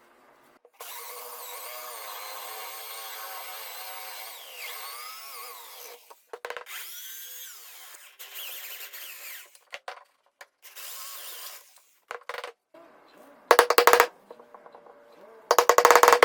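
A power tool running in stretches, its pitch sagging and recovering as if under load, then two short, loud bursts near the end.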